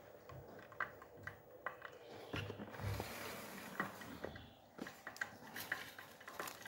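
Faint handling noises: scattered light clicks and knocks, with a brief rustle about two and a half seconds in.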